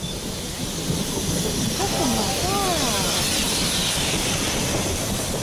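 Steam hissing steadily from a narrow-gauge steam locomotive, with voices in the background.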